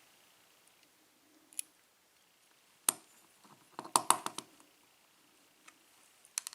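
Small metal clicks and clinks from taking apart a euro cylinder lock, as pins and parts are worked out of the plug: a sharp tick about three seconds in and a quick cluster of clicks about a second later, with fainter ticks between.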